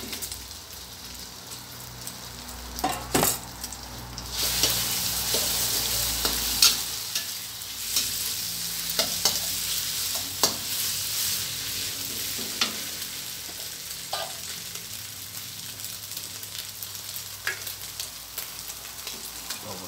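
Eggs, pork and sliced pork sausage sizzling in lard in a stainless steel wok while a spatula stirs them, with sharp clicks and scrapes of the spatula against the wok every second or two. The sizzle grows louder about four seconds in.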